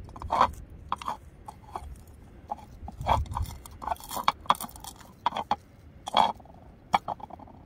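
Nylon bristle brush scrubbing and scraping inside a plastic rain-gauge funnel in short, irregular strokes with small plastic clicks, clearing out spider webs.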